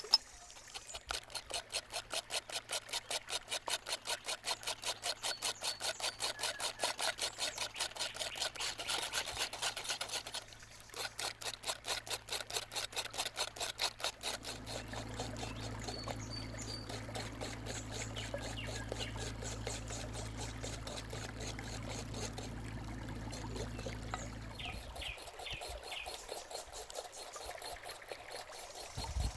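Rhythmic hand-whisking of batter in a bowl, about four strokes a second, with a short break partway through. After that comes a steady low hum of a small motor for about ten seconds.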